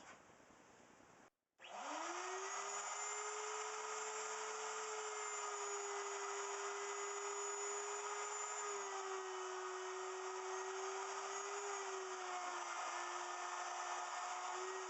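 Wood router on a router milling machine switching on, its motor whining up to speed about a second and a half in and then running steadily at a high pitch. The pitch sags slightly a few times as the bit cuts into the cedar block, routing out the inside of a box.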